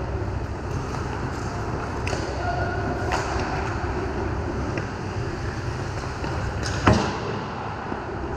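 Ice hockey play on a rink: a steady wash of skates and sticks on the ice, a few light clicks, and one loud, sharp knock about seven seconds in.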